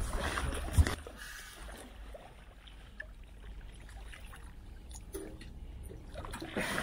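River water splashing and trickling around a wetsuited diver at the water's edge, with a few light knocks. A rumbling gust for the first second ends in a sharp thump.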